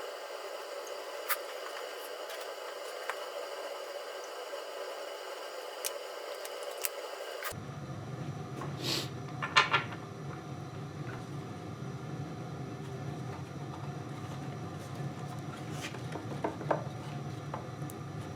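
Scattered light clicks and taps of small parts being handled at a workbench over a steady room hum, with the background changing abruptly about seven seconds in.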